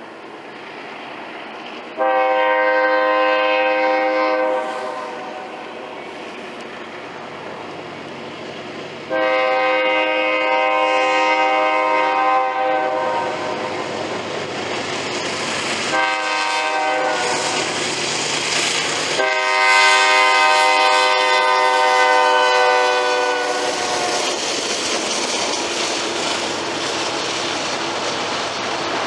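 Horn of the lead locomotive, a BNSF GE Dash 9 (D9-44CW), sounding the grade-crossing signal: long, long, short, long, a chord of several steady tones. After the last blast the diesel locomotives and loaded tank cars run past, with the clatter of steel wheels on rail joints.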